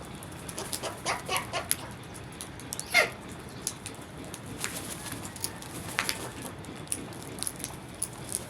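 Crows calling in short harsh caws: a cluster about a second in, the loudest about three seconds in and another about six seconds in. Short high chirps of smaller birds are scattered among the caws.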